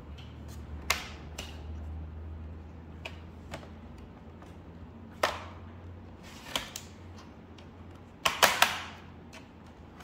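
Plastic snap clips of a Lenovo ThinkPad T580's bottom cover clicking as fingernails pry along its edge: scattered sharp clicks, with a louder quick cluster near the end, over a faint low hum.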